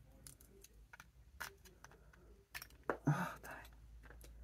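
Plastic Lego bricks clicking and scraping as pieces are pried apart by hand. There are scattered single clicks, then a louder cluster of clicks about three seconds in.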